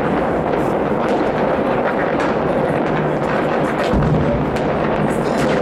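Many fireworks and firecrackers going off at once across a city, a dense unbroken crackle of overlapping bangs, with one heavier low boom about four seconds in.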